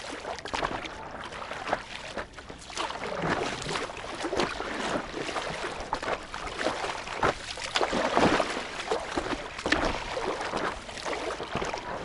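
Sea water splashing and slapping irregularly against the nose of a stand-up paddleboard as it is paddled through light chop.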